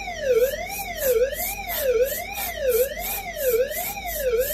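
Fire alarm system's suppression release signal: a loud tone sweeping steadily up and down, about once every 0.8 s, with a high ticking about three times a second alongside it. It signals that the suppression releasing system has been activated.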